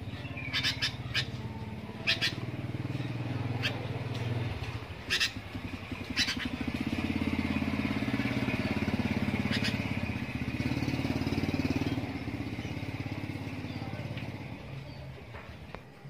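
A few short, sharp chirps from a caged sooty-headed bulbul over the steady drone of an engine. The engine is loudest for several seconds in the middle and fades near the end.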